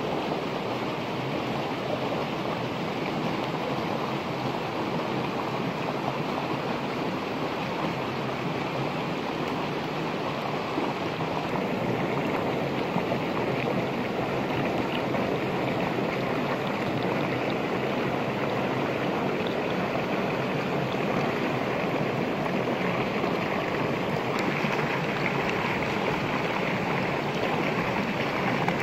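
Steady rushing noise like running water from a stream, unbroken throughout, growing a little hissier in the last few seconds.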